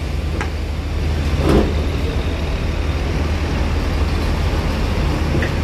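Diesel engine of a Mercedes-Benz coach running steadily with a deep low rumble as the bus moves slowly at low speed. A short, sharp noise comes about a second and a half in.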